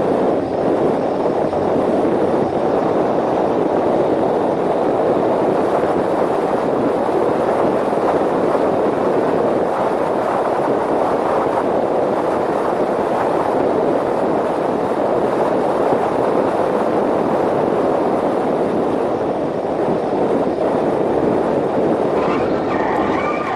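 Mazda MX-5 1.8 Turbo driving at speed on a track, heard from a camera mounted on the outside of the car: a steady, loud rush of wind and road noise with the engine buried in it. A few faint high tones come in near the end.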